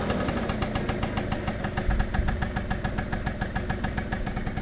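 Piaggio Typhoon 50cc two-stroke scooter engine idling steadily with an even, rhythmic putter.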